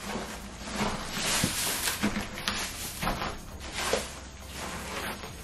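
Loose wood shavings on a coop floor rustling and scuffing as they are stirred about underfoot, in several uneven pushes.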